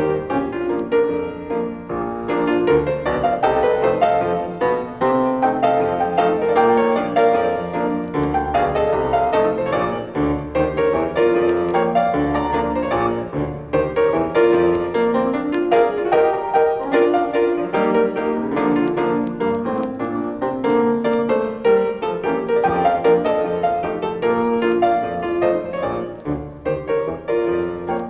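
Piano music playing throughout, a continuous run of notes as the accompanying score of a silent film.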